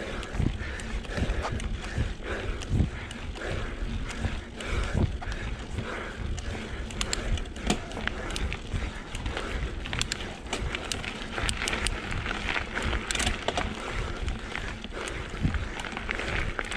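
A mountain biker breathing hard and panting while pedalling up a steep climb at race-pace effort, near maximum heart rate. Under it run a low wind rumble and rolling tyre noise, with scattered small ticks from the tyres and bike from about halfway on.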